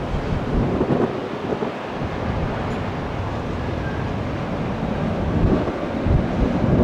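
Airbus A350-941 airliner noise: a steady rushing roar with an uneven low rumble and gusts.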